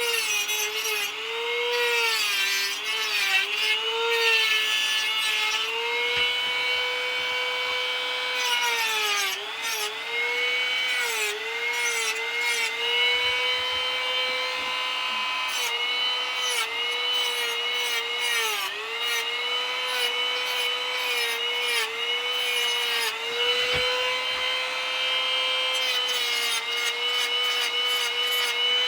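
A small power tool's motor runs with a high, steady whine. Its pitch sags briefly over and over as it is pressed into the work, and there is a scratchy scraping from the tool biting into the surface.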